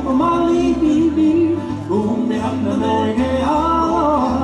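Live Hawaiian band playing guitars with a man singing over them; the sung notes are held and slide from one pitch to the next.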